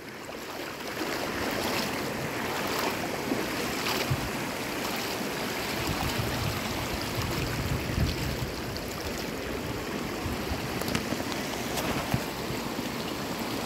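Shallow river water running over stones and small cascades: a steady rushing, with a few faint knocks.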